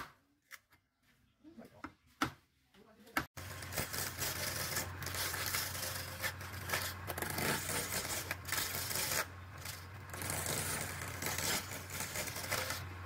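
A few sharp chops of a large blade into a square hardwood blank. About three seconds in, a homemade wood lathe's motor starts with a steady low hum, and a hand-held chisel cuts into the spinning square blank with a loud, rough, uneven scraping.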